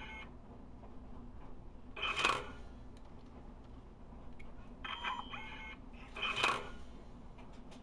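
Phoenix LTX laser tag gun's electronic sound effects as the repaired shot blast is test-fired: two short blast sounds about four seconds apart, with a brief electronic tone between them.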